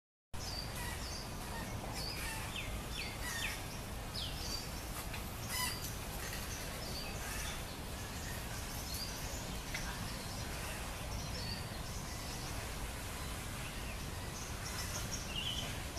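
Several birds chirping and calling in short, quick notes over a steady low outdoor rumble.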